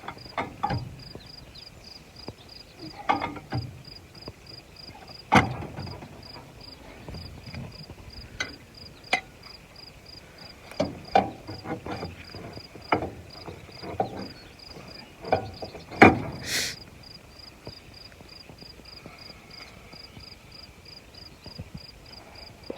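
Crickets chirping steadily, a pulse repeating about three times a second, under scattered sharp knocks from hands-on work on machinery, the loudest about five and sixteen seconds in.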